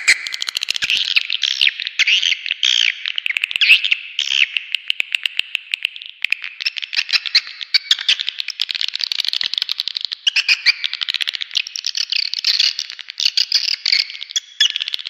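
Swiftlet calls: dense, rapid twittering chirps and clicking trills that keep overlapping throughout, with brief dips around six and ten seconds in. This is a swiftlet-farming call-sound track, made to lure swiftlets to a nest house.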